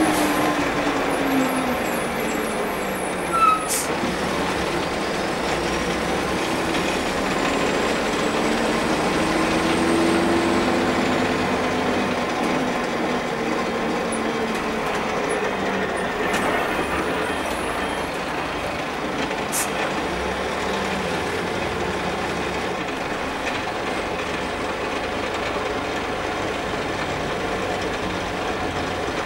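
Karosa C934 bus heard from inside the passenger cabin: its six-cylinder Renault MIHR diesel engine pulls the bus along over road noise. The engine note drops, rises and falls again through the gears, then settles lower and steadier. A sharp click comes a few seconds in.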